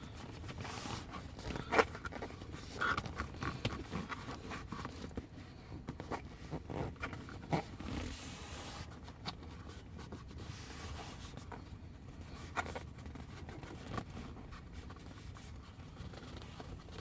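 Light, scattered rubbing and scraping as an adhesion-promoter applicator is wiped over plastic interior trim, with a few small knocks from handling.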